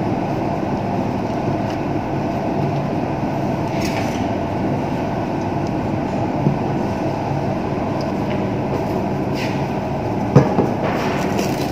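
Steady low ventilation hum filling the room, with a few light knocks from handling the dough and a glass bowl; the sharpest knock, about ten seconds in, comes as a large roll of cling film is set down on the worktop.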